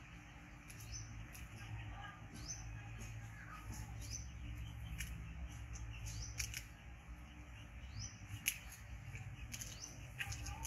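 Small bird chirping in the background, short rising notes every second or so, with a few sharp clicks and crinkles as a small plastic sachet is handled, the loudest click about three-quarters of the way through.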